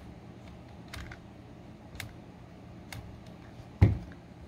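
Light plastic clicks and knocks from handling a 1/16 scale RC monster truck's chassis and suspension, about one a second, then a louder thump near the end as the truck is set down on the table.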